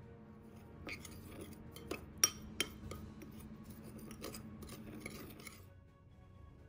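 A metal spoon stirring dry spice mix in a small glass bowl, scraping on the glass with a few sharp clinks about two seconds in, then stopping near the end. Faint background music underneath.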